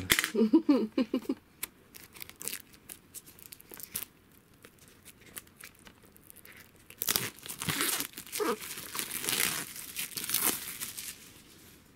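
Clear plastic wrap being torn and peeled off a Blu-ray case, crinkling. A few scattered clicks and rustles come first, then a dense run of tearing and crinkling from about seven seconds in until near the end.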